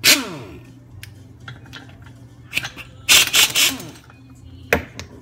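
Air impact wrench with a 15/16 socket on a small engine's flywheel nut: a short burst at the start whose pitch falls away, a few light clicks, then a rattling burst of hammering a little past three seconds as it works the nut loose, and one sharp click near the end.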